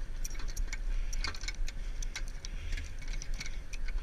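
Light metallic clicks and clinks as a belt of linked .50 caliber rounds is handled and laid into the open feed tray of an M2 machine gun, over a steady low rumble.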